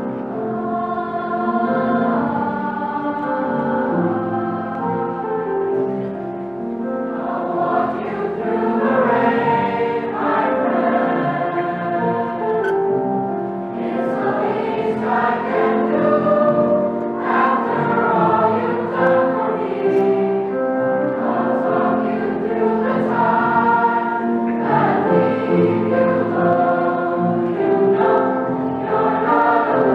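A youth choir of boys' and girls' voices singing a song together, with piano accompaniment.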